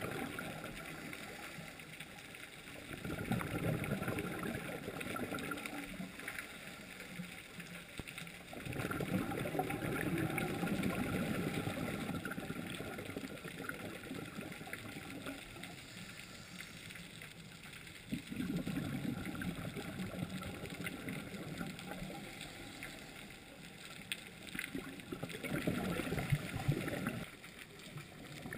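Muffled underwater water noise heard through a camera's waterproof housing. Four swells of gurgling bubble rumble, each lasting one to three seconds, rise and fade at intervals of several seconds.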